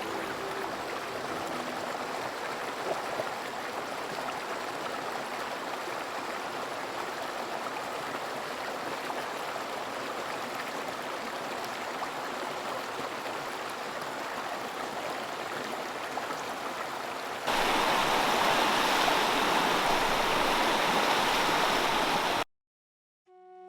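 Flowing creek water rushing steadily. About two-thirds of the way in it cuts abruptly to a louder, closer rush of water, which stops dead near the end.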